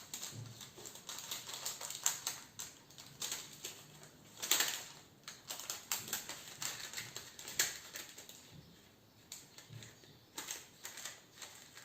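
Parchment paper being folded and creased by hand: irregular soft crinkles and taps, with a louder rustle about four and a half seconds in.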